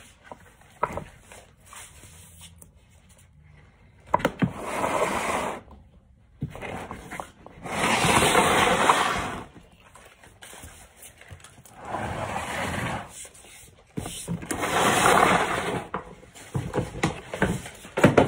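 Rummaging through Christmas decorations: four rustling, scraping swells of one to two seconds each, with sharp knocks at their starts and a cluster of clicks and knocks near the end, as ornaments are handled and taken from a plastic storage bin and box.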